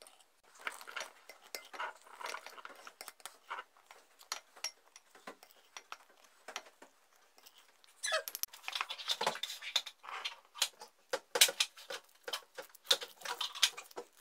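Spoon scraping and clicking against a glass bowl and jar as thick cream cheese frosting is scooped into a plastic bag, in short irregular strokes. From about eight seconds in the sounds grow louder and busier, with the plastic bag rustling and squeaking as it is handled.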